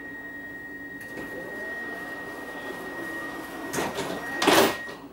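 Commuter train's sliding passenger door closing: a steady high warning tone sounds while the door runs shut, ending in two loud bangs as it closes, the second the loudest, about four seconds in.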